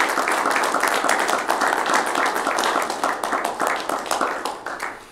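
Applause from a roomful of people clapping, dying away near the end.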